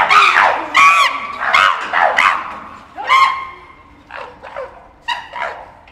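Chimpanzees screaming in a fight: a run of short, loud, high calls, one every half-second or so, that grow fainter and more scattered after about four seconds.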